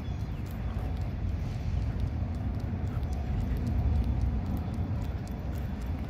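Outdoor city street ambience: a low, steady rumble of traffic and wind on a phone's microphone, with faint, regular footsteps of someone walking.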